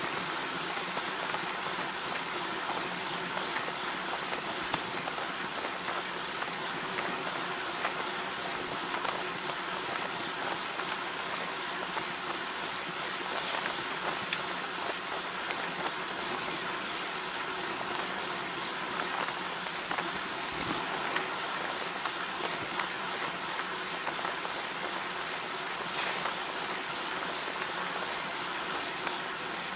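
Steady, even road and wind noise of a moving vehicle on a ride, with a few sharp clicks scattered through it.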